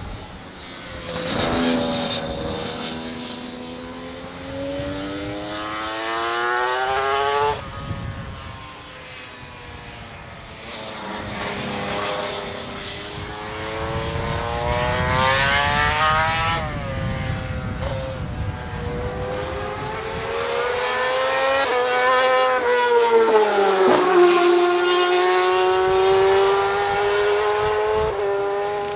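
Racing motorcycle engines at high revs, pulling hard with the engine note climbing steadily in pitch. It drops sharply about three times, at upshifts or as one bike gives way to the next.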